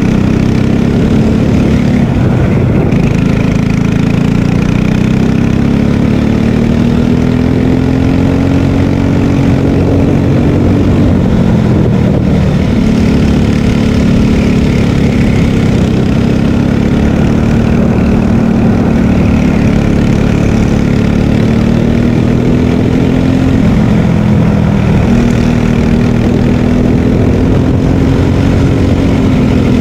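Margay Ignite K3 kart engine running hard under load. Its pitch climbs steadily as the kart accelerates and drops sharply twice, about 11 and 25 seconds in, as the driver lifts for corners.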